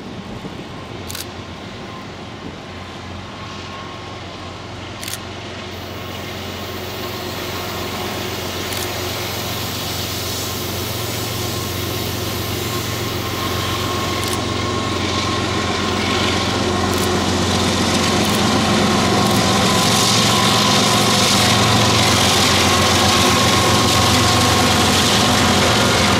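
Norfolk Southern diesel freight locomotives approaching slowly: a steady low engine drone that grows steadily louder as they draw near. A rising hiss of wheels on rail joins in during the second half.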